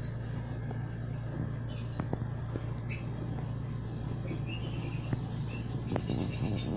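Lovebirds giving high, squeaky chirps while eating from a spoon, in quick short calls that crowd into a fast run about four seconds in. A few faint taps, and a steady low hum underneath.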